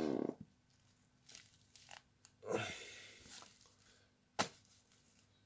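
Plastic-wrapped firecracker packs being handled: soft crinkling and rustling of the shrink-wrap, with one sharp tap near the end.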